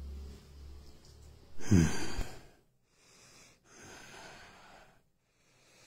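A man's heavy breathy exhale with a voiced, falling pitch about a second and a half in, then a fainter breath near four seconds.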